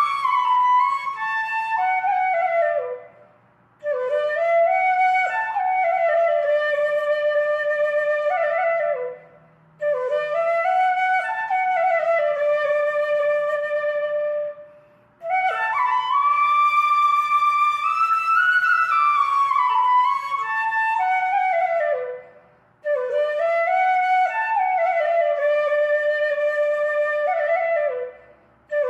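Flute music: a slow melody played in long phrases of a few seconds each, with brief pauses between them.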